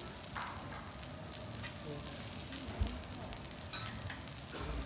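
Wagyu beef searing on a steel teppanyaki griddle, sizzling steadily at a low level, with a short clink about three and a half seconds in.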